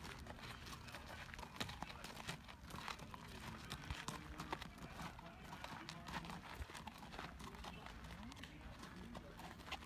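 Faint, irregular crunching steps of a walking horse and the people beside it on a dirt-and-gravel arena.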